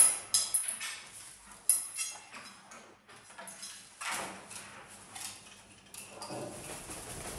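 A pet parrot's sharp, high-pitched calls, several in quick succession in the first two seconds, followed by softer rustling noises.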